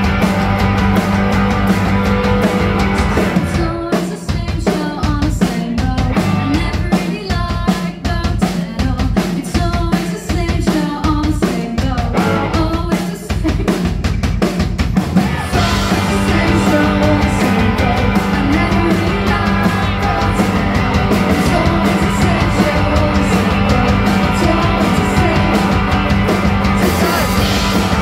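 Live indie rock band playing with electric guitars, bass, drum kit and a woman singing. About four seconds in the band thins out to a steady kick drum about twice a second under the vocal, and the full band comes back in at about sixteen seconds.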